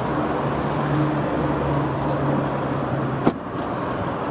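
Steady hum of motor traffic with a low engine drone, then one sharp click about three seconds in as the Citroën C2's tailgate latch releases and the hatch opens.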